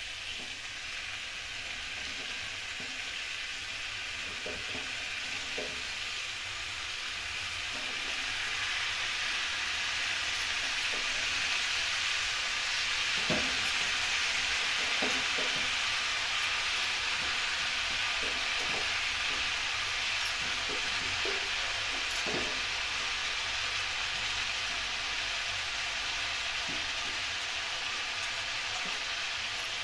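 Spiced potatoes frying in oil in a kadhai, giving a steady sizzle while handfuls of shredded cabbage are dropped on top, with a few soft rustles and knocks. The sizzle grows louder about ten seconds in and stays up.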